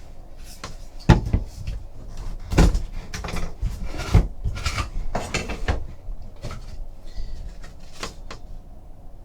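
A cardboard box being opened and handled on a table: a string of knocks, taps and rustles, the sharpest about a second in and again around two and a half and four seconds in.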